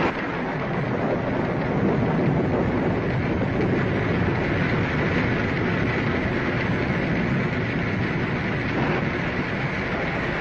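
Radio-drama storm sound effect: a steady, dense rush of rain and wind.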